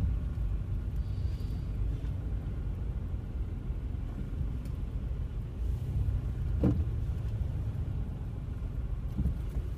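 Steady low rumble of a car's engine and road noise heard from inside the cabin as it creeps along in traffic, with one brief higher-pitched note about two-thirds of the way through.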